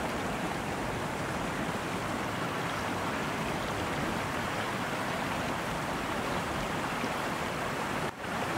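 Steady rush of a mountain stream's flowing water, with a brief break near the end.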